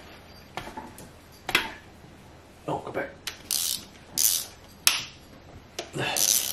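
Ratchet wrench clicking in short, irregular bursts, loosening the connecting-rod cap bolts of a Nissan KA24DE engine block.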